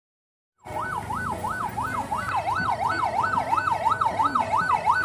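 Ambulance siren in a fast yelp, its pitch sweeping up and down about three times a second. It cuts in abruptly about half a second in.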